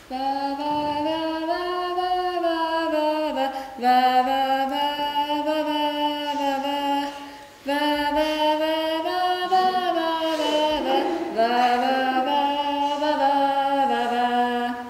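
A woman singing unaccompanied, long held notes in three phrases with no words heard.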